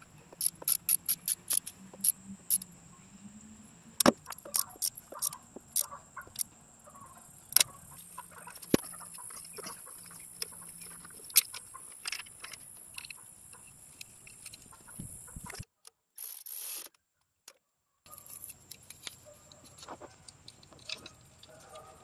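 Ratchet wrench clicking as the alternator's pivot bolt is tightened: a quick run of about four to five clicks a second at the start, then slower, scattered clicks.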